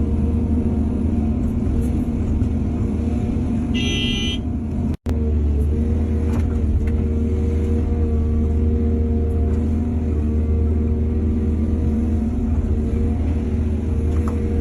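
Heavy diesel earthmoving machinery running steadily with a low rumble, with a brief high-pitched tone about four seconds in. The sound cuts out for an instant about a second later.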